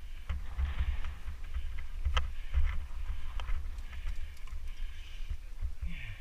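Footsteps on a dirt trail and the clicks and rattle of mountain bikes being pushed uphill by hand, over an uneven low rumble. Two sharp clicks stand out about two and three and a half seconds in.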